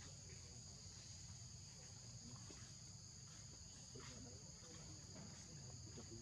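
Faint steady drone of insects outdoors, two high, unbroken tones, over a low background rumble.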